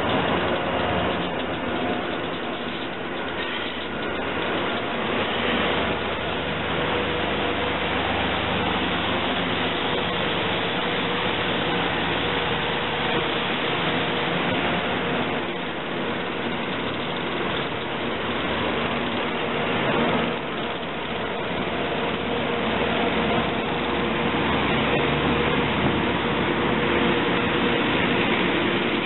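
Steady mechanical drone with several held hums: SEPTA AEM-7 electric locomotives and their rail washer train moving slowly past.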